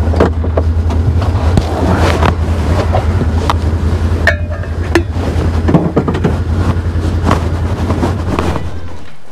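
Can-Am Defender side-by-side's engine idling with a steady low drone, heard from inside the cab. Scattered clicks and knocks sound over it, and the sound fades out near the end.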